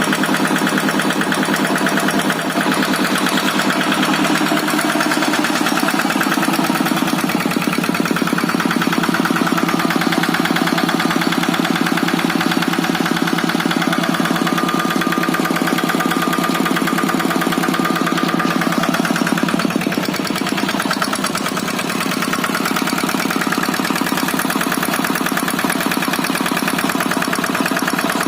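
Kubota RD65DI-1S single-cylinder direct-injection diesel engine running steadily with a rapid, even firing beat. Its loudness dips briefly about twenty seconds in.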